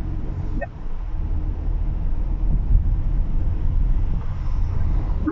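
Steady low rumble of a VW Polo's engine and tyres heard inside the cabin while driving.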